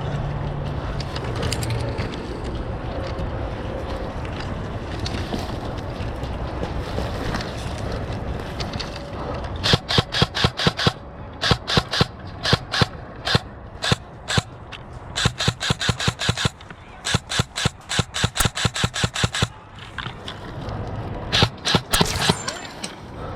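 Airsoft rifle firing strings of rapid sharp shots with short pauses between bursts, starting about ten seconds in and stopping about twenty seconds in, with a few more shots near the end. Before the shooting there is a steady background noise.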